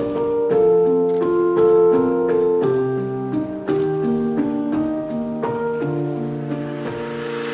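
Piano playing the slow intro of the waltz song for the dance, single notes and chords over held bass notes.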